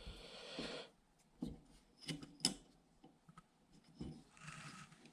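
Small gun parts being handled during AR-15 lower receiver assembly: a short scraping rub at the start, several light clicks, and another brief rub near the end.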